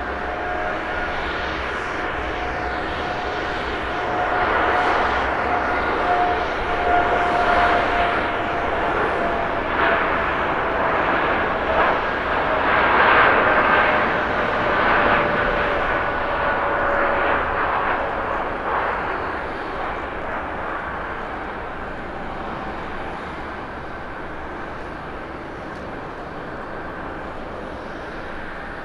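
Boeing 787-9 airliner's twin turbofan engines at takeoff thrust through the takeoff roll and lift-off: steady jet noise with a whine that slowly falls in pitch as the aircraft passes. It is loudest about halfway through, then fades as the plane climbs away.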